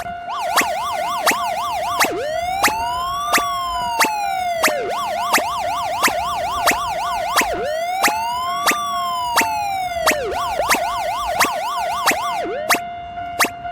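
A siren sound effect alternates a fast up-and-down yelp with a slow rising-and-falling wail, twice over, and stops shortly before the end. Under it, a railway level-crossing alarm rings in steady strokes about one and a half a second over a constant tone.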